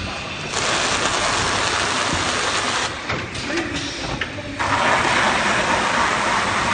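Automatic carton sealer running with a steady low motor hum, while packing tape pulls off the roll onto passing cartons in two long, loud stretches of tape-unwinding noise, the first about two and a half seconds, the second about three, with a few clicks of the mechanism between them.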